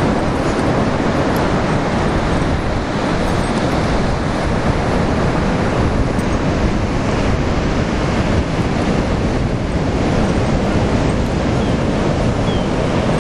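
Ocean surf breaking and washing in as a steady, unbroken rush, mixed with wind rumbling on the microphone.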